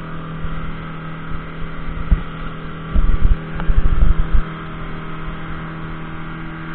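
A 150-horsepower outboard motor running steadily at cruising speed, heard from aboard the boat as an even hum. Heavy low buffeting comes over it, loudest about three to four and a half seconds in.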